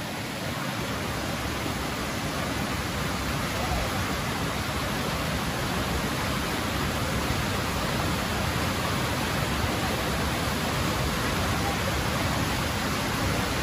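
Fast-flowing river water rushing in a steady, even roar of noise.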